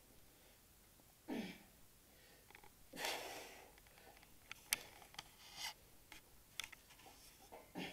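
A man's heavy breathing from exertion during upside-down sit-ups while hanging in gravity boots: a falling grunt about a second in, a long breath out a second later, then shorter breaths, with a few sharp clicks between them.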